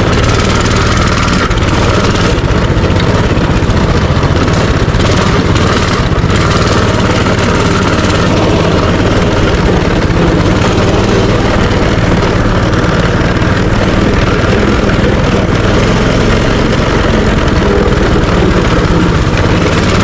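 Minibike's small engine running steadily under way, a constant hum with a rushing noise over it.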